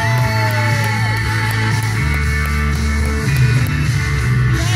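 Rock music playing loudly, with a steady bass line and guitar-like notes sliding down in pitch in the first second.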